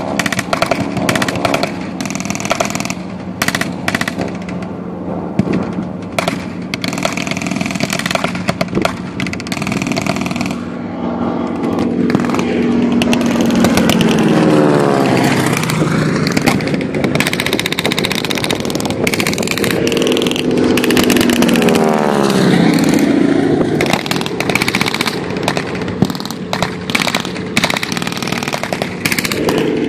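A propeller airplane makes two low passes overhead, its engine note falling in pitch as it goes by each time. Under it an armoured vehicle's engine runs steadily, with scattered sharp cracks of blank gunfire.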